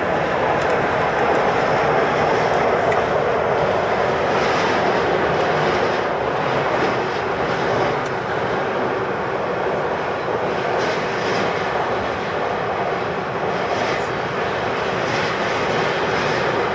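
Steady running noise of an East Rail Line electric train at speed, heard inside the passenger carriage while the train is in a tunnel.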